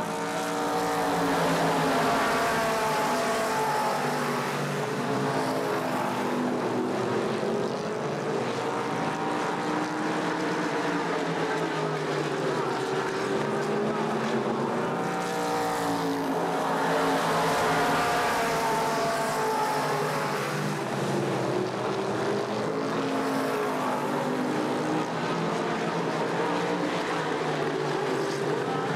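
A field of late model stock car V8 engines racing around an oval, several engines at once rising and falling in pitch as they lift for the turns and accelerate down the straights. The sound swells as the pack passes the grandstand about two seconds in and again about two-thirds of the way through.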